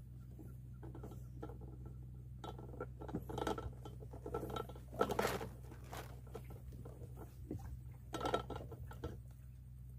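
Fabric of a shirt brushing and rustling against the camera's microphone as the wearer moves. It comes in irregular bursts, loudest about five seconds in and again after eight seconds, over a steady low hum.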